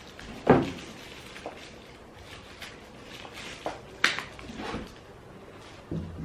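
Plastic ring light accessories and packaging being handled: a few scattered knocks and clicks, the loudest about half a second in, with a cluster around four to five seconds in.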